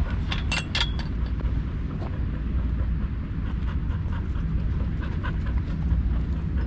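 Pit bull panting, heard through a GoPro strapped to its back, under a steady low rumble. A few sharp clicks come about half a second in.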